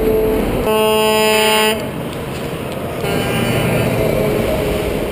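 A semi-truck's air horn blasts for about a second as tractor-trailers pass close by, over the steady tyre and diesel engine noise of the passing rigs.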